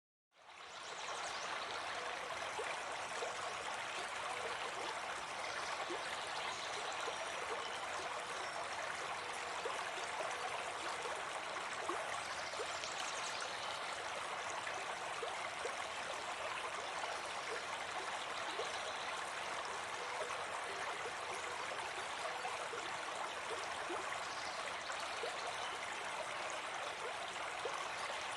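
Steady running water, like a stream, fading in over the first second and then holding at an even level.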